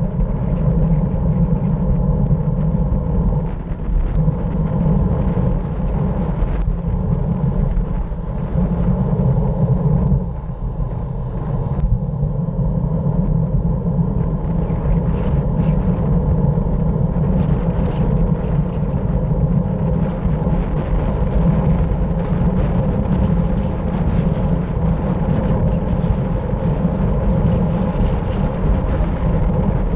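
Wind rushing over the camera microphone on a fast downhill road descent: a steady, loud, deep rumble of buffeting.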